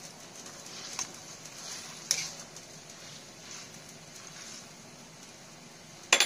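Water and shredded cabbage boiling in a wok, a steady bubbling hiss, while a metal ladle stirs it. The ladle knocks against the wok about a second in and again about two seconds in, and clatters against it loudly near the end.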